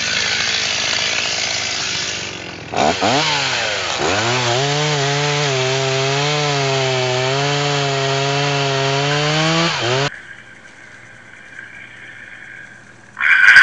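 Petrol chainsaw cutting into the trunk of a dead walnut tree: its pitch dips sharply twice as the chain bites, then it holds a steady, slightly wavering note under load. The sound drops off abruptly about ten seconds in, leaving a faint low hum.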